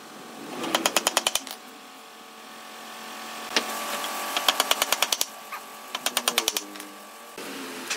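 A hammer quickly striking nails into a wooden frame joint, in three fast runs of blows, with a short pause between runs.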